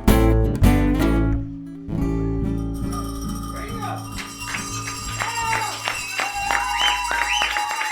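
A band's acoustic guitar playing the last strummed chords of a song, which ring out into a long held low note. Scattered sharp clicks and voices come in over the fading chord.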